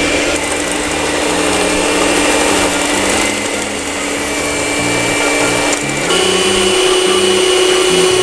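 Electric stand mixer running steadily, its beaters creaming butter, eggs and brown sugar in a stainless steel bowl. The motor hum steps up in pitch and gets a little louder about six seconds in.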